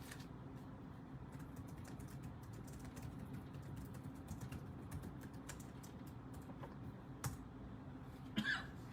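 Typing on a computer keyboard: a run of quick key clicks, with a louder knock near the end, over a low steady hum.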